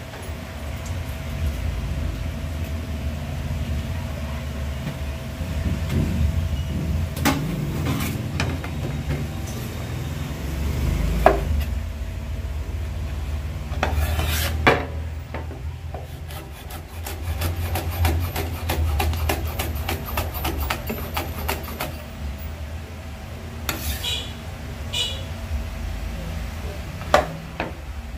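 Cleaver chopping green chilies on a wooden cutting board: scattered single knocks, then a quick run of chops at about three or four a second, over a steady low rumble.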